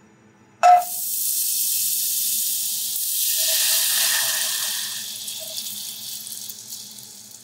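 Butter sizzling in a hot enamel pot on a gas burner. It starts suddenly with a brief ringing knock, then a steady hiss that swells in the middle and fades toward the end.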